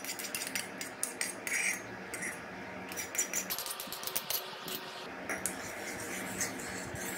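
A steel spoon clinking and scraping against a steel cup and a stainless-steel kadai as soft ghee is scraped out and stirred. The quick clinks come thickest over the first three seconds, then thin to a few scattered taps.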